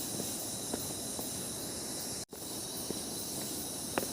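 Steady high-pitched hiss of forest insects, with a few faint clicks over it. The sound drops out for a split second about halfway through.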